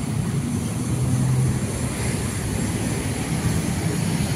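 Traffic on a city street: cars and motorbikes passing, a steady rumble, with one engine note briefly louder about a second in.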